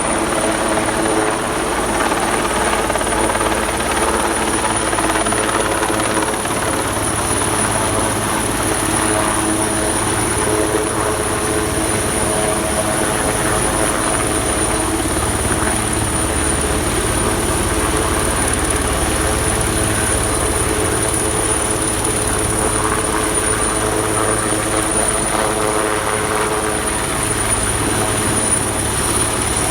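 Helicopter running steadily, its rotor and turbine noise unchanging, with a thin high whine held over it.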